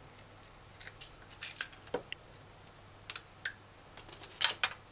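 A knife cutting broccoli florets from the stalk: a dozen or so crisp, irregular snips and snaps, with a louder pair about four and a half seconds in.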